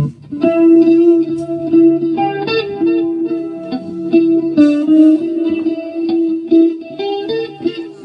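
Electric guitar played through the stage PA during a sound check: a melodic line of held notes that starts about half a second in.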